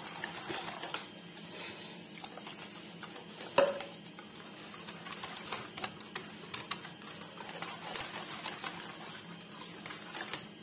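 Whisk beating gram-flour (besan) batter in a stainless steel bowl: rapid clicking and tapping of the wires against the bowl, with one louder knock about three and a half seconds in. The batter is being beaten smooth so that no lumps form.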